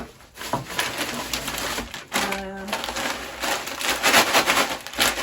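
Plastic grocery packaging rustling and crinkling as items are handled, a dense run of crackles and clicks.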